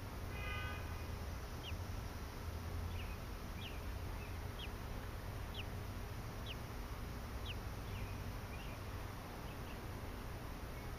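American robin hatchlings giving faint, thin begging peeps: short high notes that fall in pitch, about one a second, over a steady low background rumble. A brief higher held call sounds near the start.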